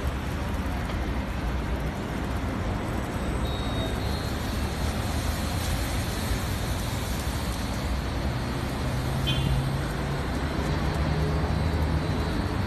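Automatic car wash running: its rotating brushes and drive machinery give a steady whirring rumble, with a low hum coming in about eight seconds in.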